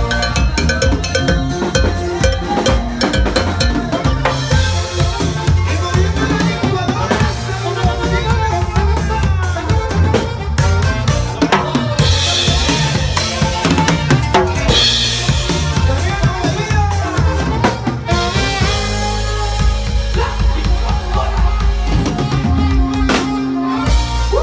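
Instrumental norteño band music driven by a loud drum kit, with bass drum, snare and rimshots under the melody instruments and no singing.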